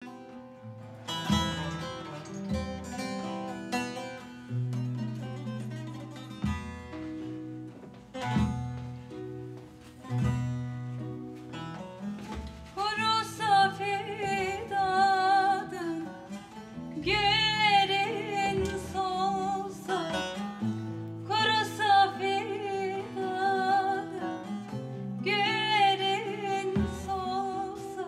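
Bağlama and acoustic guitar playing an instrumental opening; about twelve seconds in, a woman starts singing the melody over them with a wavering vibrato.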